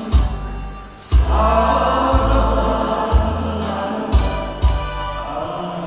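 Song played through a stage PA: a backing track with a heavy bass beat about once a second, with sustained choir-like singing coming in about a second in.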